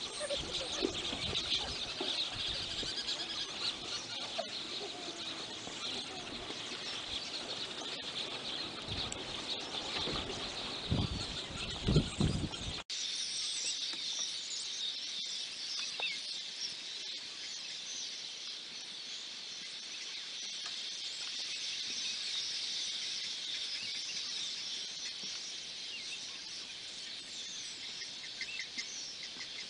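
A dense chorus of many birds chirping and calling. Low rumbling noise runs under it, loudest about 11 to 12 seconds in, and cuts off abruptly about 13 seconds in, after which only the chirping goes on.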